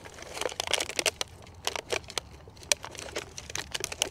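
Thin plastic seedling module tray crinkling and crackling by hand in a run of quick, irregular clicks, as lettuce plug plants are squeezed out of their cells.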